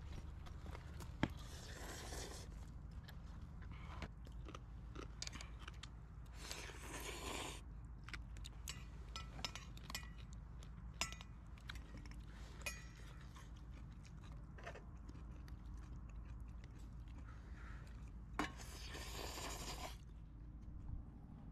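Footsteps crunching on gravel with scattered sharp clicks, over a steady low rumble.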